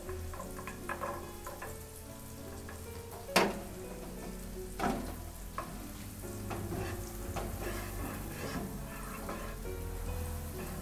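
Diced onion, carrot and capsicum sizzling in butter in a nonstick frying pan, stirred with a plastic slotted spatula that scrapes and clicks against the pan, more often in the second half. A sharp knock about three seconds in.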